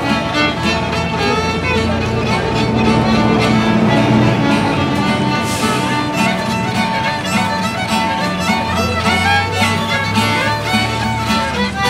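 Fiddle and acoustic guitar playing a tune together, the fiddle carrying the melody over the guitar's strummed chords and bass notes.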